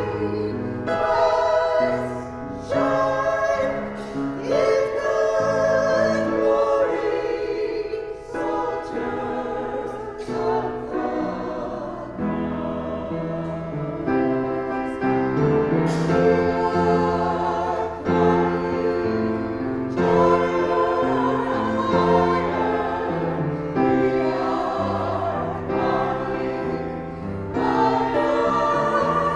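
Two singers singing a sacred song in duet, held notes moving over steady sustained keyboard accompaniment.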